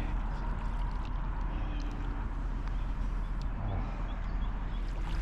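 Steady rumble of wind and fast river current rushing past an anchored boat.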